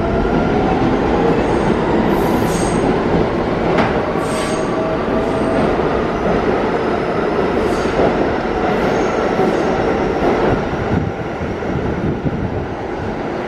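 New York City subway train pulling out of the station and gathering speed: a steady rumble with a motor whine rising in pitch over the first couple of seconds. High wheel squeals come in several times, along with sharp clacks over the rail joints.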